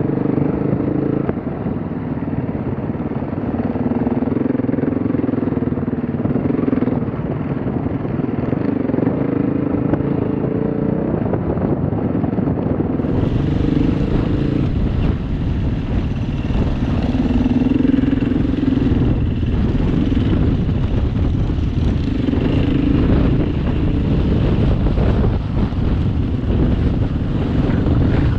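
Trail motorcycle engines running on a grassy off-road track, the pitch rising and falling with the throttle over a dense rumble. The sound changes abruptly about halfway through.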